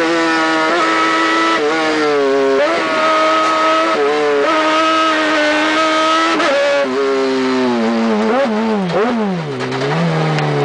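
Engine running hard at high revs, its pitch jumping up and down in steps every second or so, then falling and rising in sweeps near the end.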